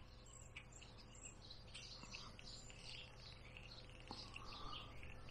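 Faint songbirds chirping in the background, with a few soft clicks.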